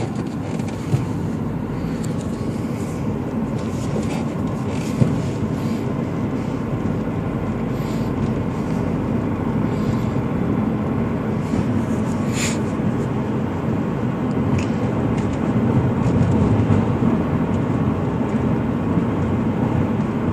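2006 Subaru Legacy GT's turbocharged flat-four engine running steadily, with the noise of a clutch throwout bearing that the owner calls noisy. A short high chirp sounds about twelve seconds in.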